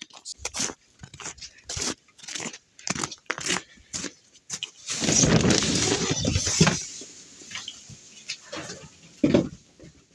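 Firewood logs being handled: a run of separate wooden knocks and clunks, then a dense clatter of logs knocking together for about two seconds around the middle, followed by a few more knocks.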